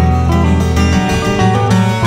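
Instrumental background music with plucked strings.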